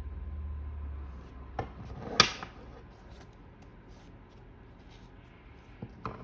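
Tarot cards and objects being handled on a table: a low rumble at the start, a light click, then one sharp knock about two seconds in, followed by faint ticks and a couple of small taps near the end.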